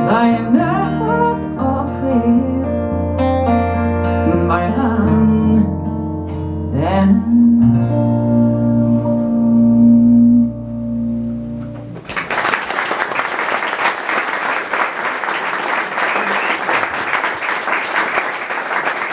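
Female voice singing over a strummed acoustic guitar, ending on a long held note about ten seconds in while the last guitar chord rings out. About twelve seconds in, an audience starts applauding.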